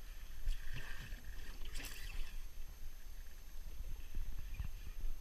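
Water lapping against a small aluminium boat's hull over a steady low rumble, with a short rushing sound about two seconds in.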